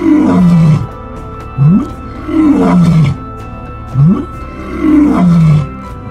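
A big cat roaring in a repeated series, each call a short rising breath followed by a longer falling roar, about three in a row, over background music.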